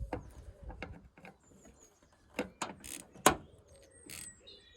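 Scattered clicks and knocks of hand tools and small metal parts being handled during hands-on work on a vehicle, the sharpest knock a little past three seconds in. A bird chirps faintly near the end.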